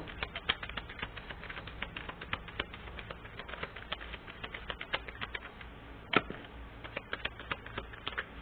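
Irregular light clicking, several clicks a second, with one louder click about six seconds in.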